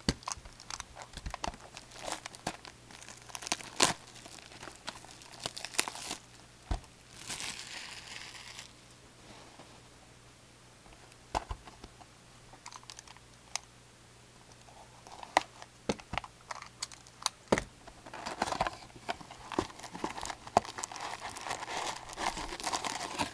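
Plastic shrink-wrap crinkling and tearing as it is pulled off a factory-sealed box of trading cards, with sharp crackles and taps of the cardboard box being handled. A quieter spell comes midway, then busier crinkling near the end as the box is opened.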